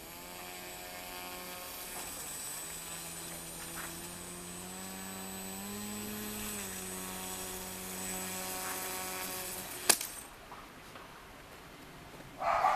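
Electric motor of a small radio-controlled model sled running with a steady whine, its pitch rising briefly around the middle and dropping back. It cuts off with a sharp knock about ten seconds in.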